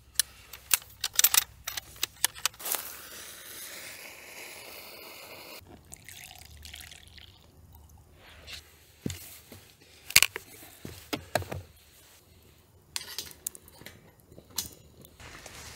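Water pouring for about three seconds a few seconds in, amid a scattered series of sharp clicks and knocks.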